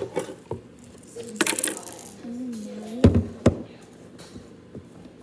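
Clinks and knocks of small hard objects handled close to the microphone, with a brief rushing hiss about one and a half seconds in and two loud thumps about three seconds in.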